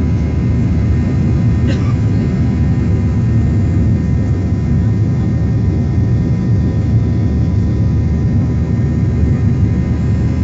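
Jet airliner's engines at climb power just after take-off, heard inside the cabin: a steady deep rumble with a faint steady whine above it.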